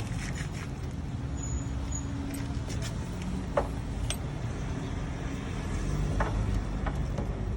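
A motor vehicle's engine running steadily, a low rumble, with a few light clicks and taps over it.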